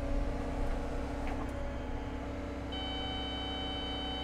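Cat 315 excavator running steadily while digging, a low even hum. About two-thirds of the way in, a steady high-pitched whine made of several tones joins it.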